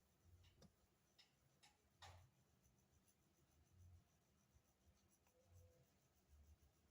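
Near silence, with a few faint, short scratching clicks in the first two seconds, then only room tone.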